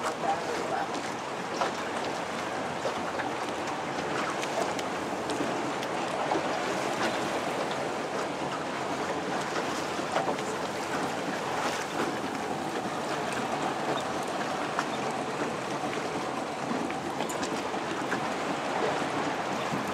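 Small motor boat's outboard engine running steadily, with water splashing against the hull.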